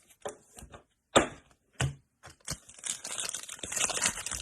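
A trading card pack's wrapper being torn open and crinkled: two sharp cracks, then a run of crinkling and tearing from about halfway through.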